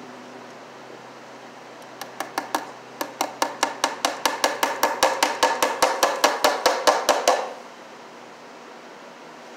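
Quick hammer blows at a wood wall stud by an electrical box: a few taps, then a steady run of about five blows a second for some four seconds, each ringing briefly, stopping abruptly.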